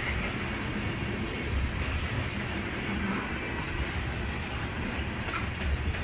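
Freight train of tank cars rolling past at close range: a steady noise of steel wheels running on the rails, with uneven low thumps underneath.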